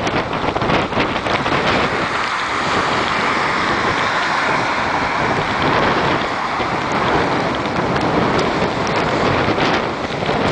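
Wind buffeting the microphone: a loud, steady rush of noise with gusty crackle, mixed with rain.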